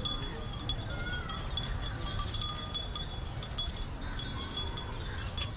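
Bells and chains on caparisoned elephants jingling and clinking irregularly as the elephants walk past, over a steady low rumble.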